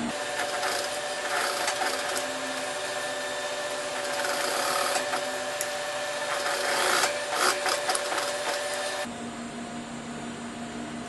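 Electric sewing machine stitching steadily, sewing a pocket facing onto denim, then stopping sharply about nine seconds in; a quieter low hum remains.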